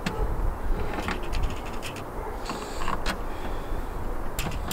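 Scattered clicks, knocks and a brief scrape of a bolt and metal bracket being worked into a riv nut by hand, the riv nut's threads tight from being over-squeezed, over a steady low rumble.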